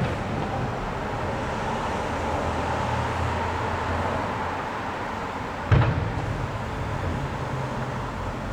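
Fireworks bursting: a sharp bang right at the start and a louder one about six seconds in, each trailing off in a low rolling echo over a steady wash of background noise.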